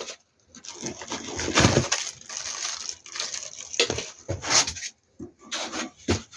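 Plastic packaging rustling and crinkling while the plastic parts of a cordless stick vacuum are handled and knock together, in irregular bursts with a few sharp clicks.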